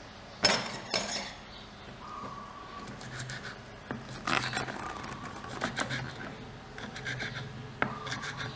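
Tiny metal kitchen knife chopping leafy greens on a small wooden cutting board: a run of quick, irregular taps of the blade on the wood. Two sharper knocks come about half a second and a second in.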